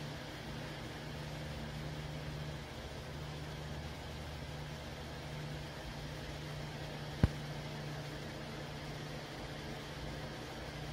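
A steady low hum that swells and fades slightly, with one sharp click about seven seconds in.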